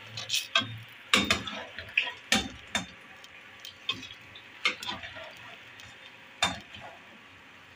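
Steel slotted spoon clinking and knocking against the pot as fried pakoras are tipped into the kadhi: a string of sharp, irregular clinks that thin out toward the end, over a faint steady hiss.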